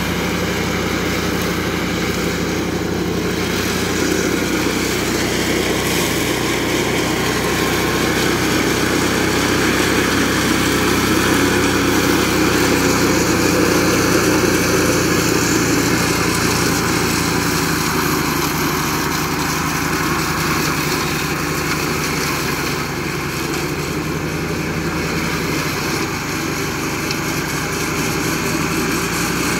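Flail mower running steadily, its engine and spinning flail shaft cutting and mulching grass.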